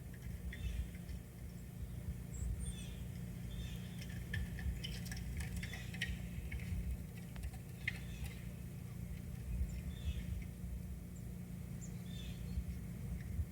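Small birds chirping, short calls repeating about once a second, with a spell of light ticking and clicking in the middle, over a steady low rumble.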